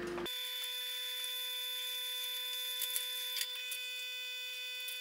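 Hot-air heat gun running steadily to shrink heat-shrink tubing over wire joints: a steady whine of several fixed tones over a hiss of blown air, coming on abruptly just after the start.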